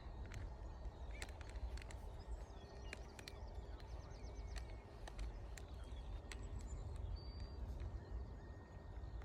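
Tent pegs being pushed and knocked into the ground: irregular short clicks and knocks, with birds chirping faintly now and then.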